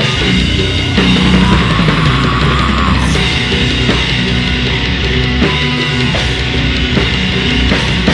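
Grindcore band playing loud, heavy distorted electric guitar over a drum kit, with a crash about three seconds in.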